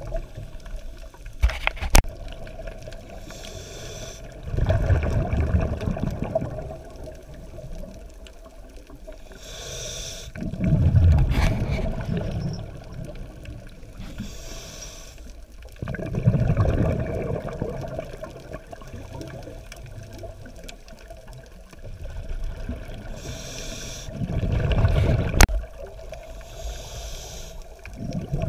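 Scuba regulator breathing underwater: a short hissing inhale through the demand valve, then a longer low rumbling gurgle of exhaled bubbles, repeating about every six seconds. A few sharp clicks come near the start and near the end.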